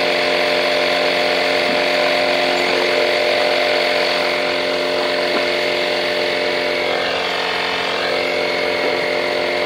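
Portable 12V Audew tire inflator's motor and piston compressor running steadily, pumping up a car tire with a constant buzzing hum.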